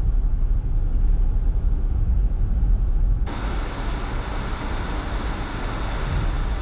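Car driving, heard from inside the cabin: a steady low road and engine rumble. About three seconds in, the sound changes abruptly to a steady hiss that reaches much higher.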